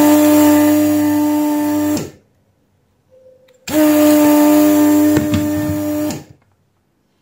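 Vacuum pump of a Weller desoldering station running twice, each time for about two and a half seconds, a steady hum over a hiss. The heated desoldering iron is sucking molten solder off the leads of an electrolytic capacitor to free it from the board.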